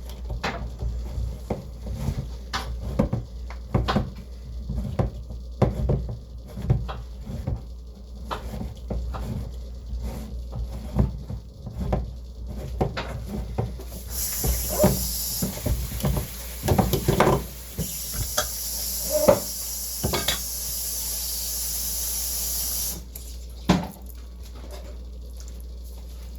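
Kitchen clatter: a spoon and pan knocking and scraping in many short clicks and taps. About halfway through, a water tap runs steadily for about nine seconds, then shuts off suddenly.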